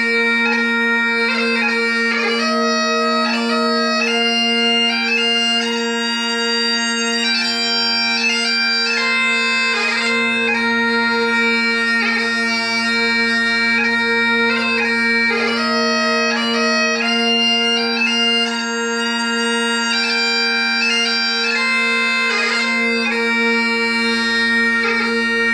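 Highland bagpipes playing a tune on the chanter over steady, unbroken drones.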